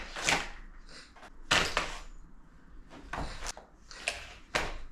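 Cordless drill being pushed into and lifted out of a tool-belt drill holster: several short knocks and scuffs of the drill's hard plastic body against the holster and belt.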